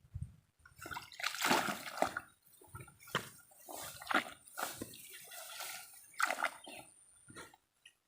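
Water sloshing and splashing in irregular bursts, as when something moves through shallow stream water.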